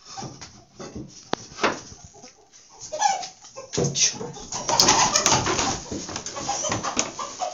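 Free-range chickens making low calls, with a louder, denser commotion starting about four seconds in as they are handled.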